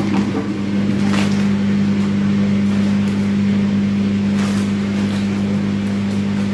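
A loud steady low hum throughout, with a few brief crunches of crisps being chewed and rustles of the crisp packet, the clearest about a second in and about four and a half seconds in.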